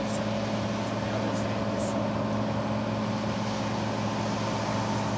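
Small work tug's diesel engine running at a steady pitch as the boat crosses the river: an even, unchanging drone.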